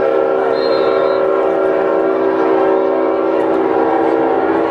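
A long, steady horn blast sounding one held chord of several tones.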